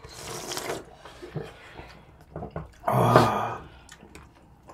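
Close mouth sounds of eating fish cake in hot broth: wet slurping, with a short slurp at the start and a louder slurp about three seconds in.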